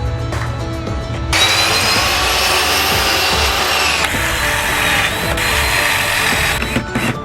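A power tool running on wood for about five seconds, starting about a second in and stopping near the end, over background music.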